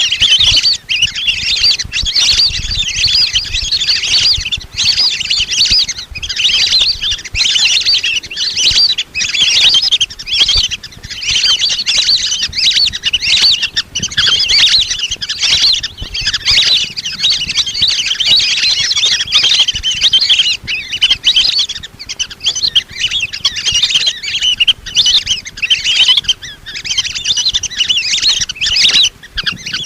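A flock of lesser whistling ducks calling continuously, many high-pitched whistled chirps overlapping one another.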